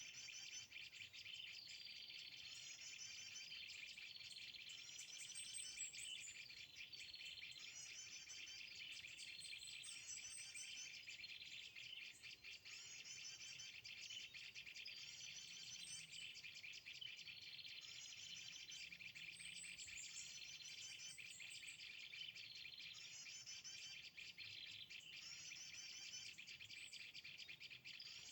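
A small bird's high, quick song phrase, a rising note followed by a rapid run of twittering notes, repeating about every two seconds over a steady insect hum.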